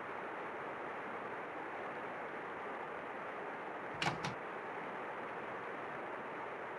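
Steady low hiss of background ambience, broken about four seconds in by two short clicks a quarter second apart: an SUV's door handle and latch being opened.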